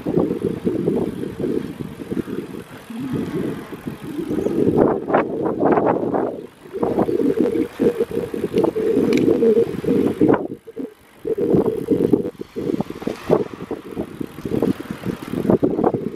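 Touring bicycle riding along a paved path, its tyres rolling while wind rumbles and gusts on the microphone mounted at the handlebars. The noise dips briefly twice.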